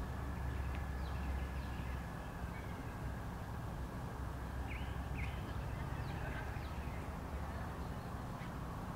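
Wild birds chirping in open spring parkland, with two sharp rising chirps about five seconds in and fainter calls scattered around them, over a steady low rumble.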